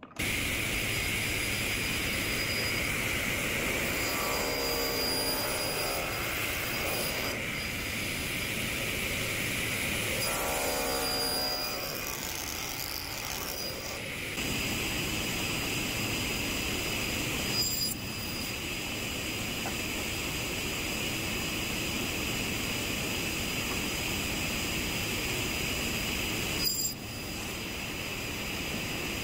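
Table saw running with a steady high whine. Its blade cuts through oak twice, around four and ten seconds in, with short clicks near eighteen and twenty-seven seconds.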